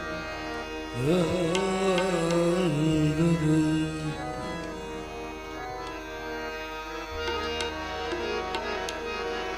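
Instrumental opening of a live Hindi devotional bhajan. A single melody line is held and wavers over a steady drone for the first few seconds, and tabla strokes come in during the second half.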